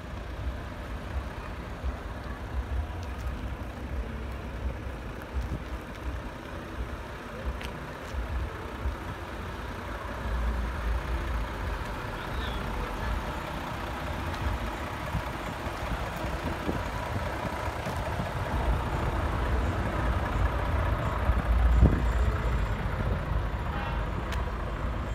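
Heavy trucks' engines running on a show ground: a steady low rumble that swells about ten seconds in and again near the end, with voices murmuring in the background.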